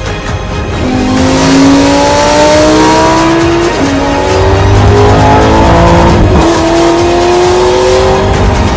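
Supercar engine through an aftermarket valved exhaust, accelerating hard from about a second in: its pitch climbs steadily in each gear, broken by two quick upshifts. Background music plays underneath.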